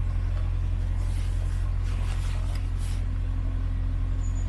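Narrowboat engine running steadily under way, a constant low drone.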